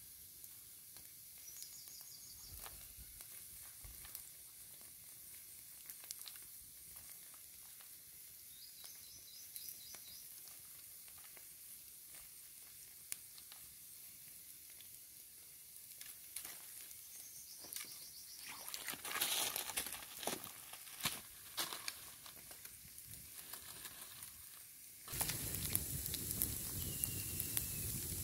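Quiet handling sounds with light clicks and rustling, then food begins sizzling in a hot pan about three seconds before the end, a steady hiss with crackles.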